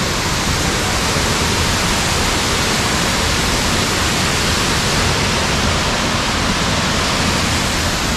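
Waterfall rushing steadily: a loud, even wash of falling water with no breaks.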